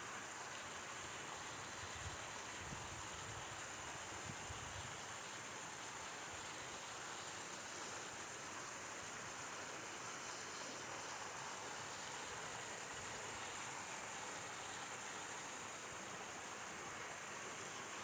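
Steady rushing and splashing of a small waterfall pouring down a rock face into a pool.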